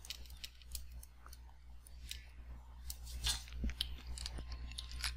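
Stylus tapping and scratching on a tablet screen during handwriting: a scatter of light, irregular clicks over a low steady hum.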